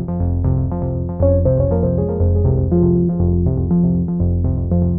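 Background music: a synthesizer and keyboard track with a steady rhythm and bass line.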